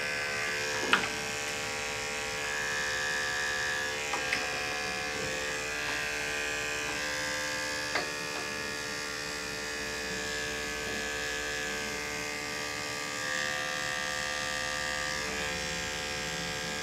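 Electric dog-grooming clippers running steadily as they trim the fur on a small dog's head and face, with a few short clicks, the loudest about a second in.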